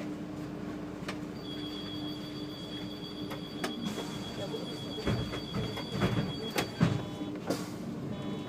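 SOR NB 12 City bus idling at a stop, heard from the driver's cab, with a steady hum throughout. A high, steady two-note whine comes in about a second and a half in and stops about two thirds of the way through. Several knocks and thumps follow near the end, the loudest just before it.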